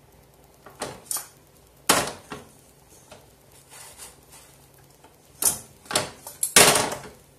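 A cast-iron stovetop toast maker being handled on the gas burner: a string of sharp metal clanks and knocks, a pair about a second in, a loud one about two seconds in, and a quick cluster near the end.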